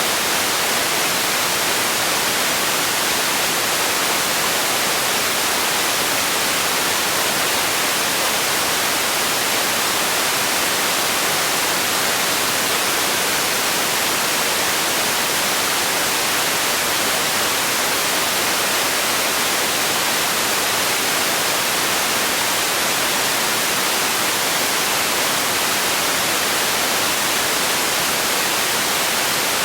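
Steady, unchanging synthetic white noise, a constant bright hiss.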